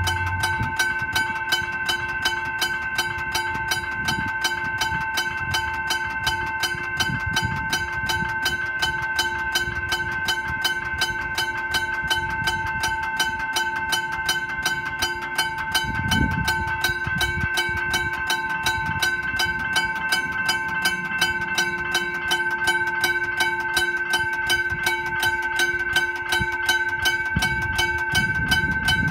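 McKenzie & Holland teardrop level-crossing bell ringing continuously with rapid, evenly spaced strikes.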